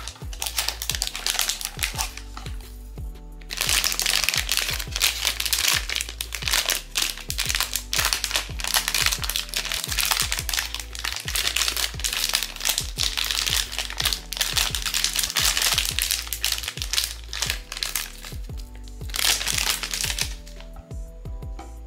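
Plastic packaging being handled and opened, crinkling and crackling almost continuously, with a short lull about three seconds in. Background music plays under it.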